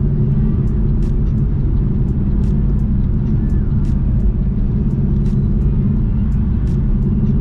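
Chevy SS's 6.2-litre LS3 V8 droning steadily at a constant pitch while cruising, heard from inside the cabin over a low road rumble.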